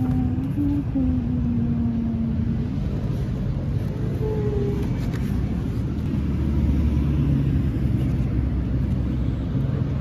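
Road traffic rumbling steadily, with a heavier vehicle's low engine hum growing louder from about six seconds in.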